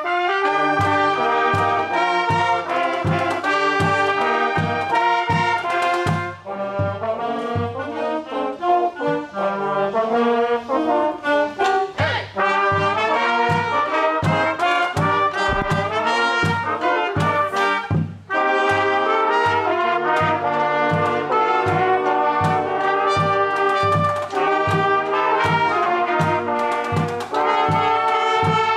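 High school band horn section of trumpets, trombones and saxophones playing an upbeat tune together over a steady low beat of about two notes a second.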